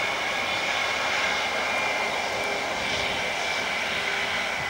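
IAE V2500 turbofan engines of a British Airways Airbus A320-232 running steadily at low thrust as the jet rolls along the runway, a steady high whine over a rushing hiss.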